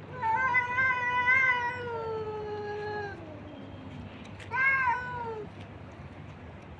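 A cat meowing twice: one long drawn-out meow that sinks in pitch at its end, then a shorter, rising-and-falling meow.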